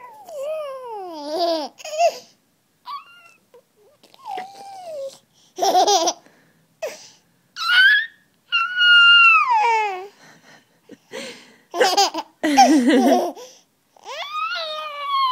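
A baby laughing in repeated short bursts, mixed with high-pitched squeals that glide up and down in pitch.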